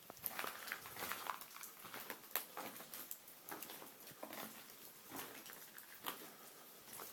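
Faint, heavy mouth breathing of an out-of-breath walker, with irregular small clicks and crunches of footsteps on the rocky lava floor.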